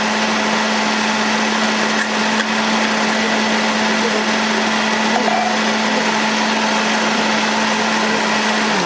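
Electric countertop blender running steadily, puréeing carrots into an orange juice, its motor giving a constant hum over a whirring rush. The motor is switched off at the very end and winds down.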